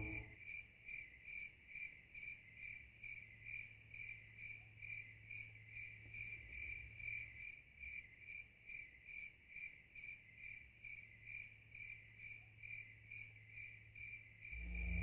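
A cricket chirping steadily, about two and a half high-pitched chirps a second, with a faint low hum beneath.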